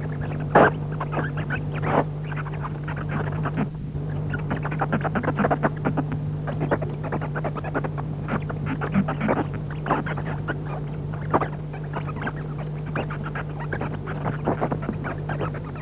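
Rapid, irregular clicking and clattering, several knocks a second of varying strength, over a steady low electrical hum.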